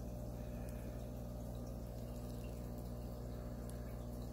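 Running aquarium's filter making a steady low hum with an even wash of water noise.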